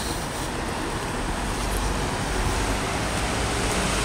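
Steady street traffic noise: an even rush of road vehicles with a low rumble.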